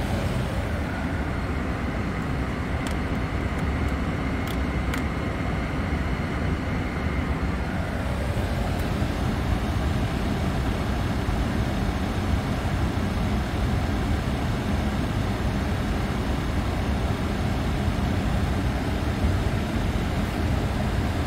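Steady low background noise of a Boeing 747 flight deck on the ground, unchanging throughout, with a few faint clicks in the first five seconds.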